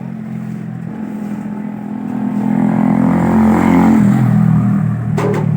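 A motor vehicle engine running close by, swelling louder through the middle and easing off toward the end. A brief sharp click near the end.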